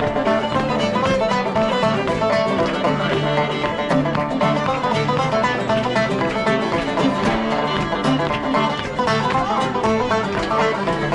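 Instrumental break of an upbeat bluegrass-style song, banjo and guitar picking over a steady beat.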